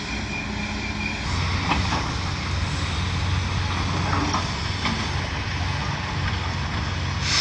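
A large engine running steadily with a low, even drone, typical of heavy demolition machinery or a truck working on the site.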